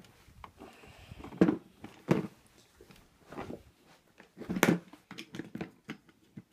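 Hard plastic ammo can being handled and moved around on a bed: an uneven series of dull clunks and knocks with smaller taps between. The loudest come about a second and a half, two seconds and four and a half seconds in.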